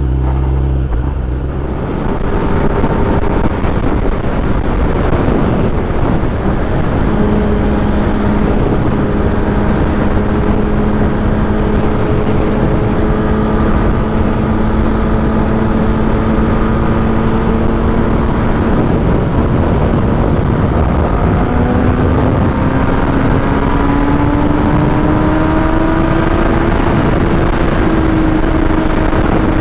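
Kawasaki ZX-10R's inline-four engine running under way at a steady cruise, then climbing in pitch over several seconds as the bike accelerates in the last third, over a constant rush of riding noise.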